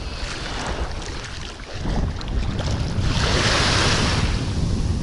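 Small sea waves washing onto the shore, with wind buffeting the microphone; a wave surges up louder about three seconds in.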